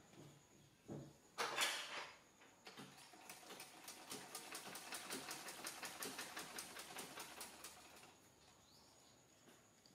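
Vintage black sewing machine stitching: a fast, even run of mechanical ticks that starts about three seconds in and fades out near the end. Before it, a short loud rustling clatter.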